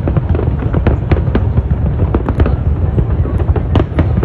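Fireworks going off: sharp bangs and crackles in quick, irregular succession, several a second, over a continuous low rumble.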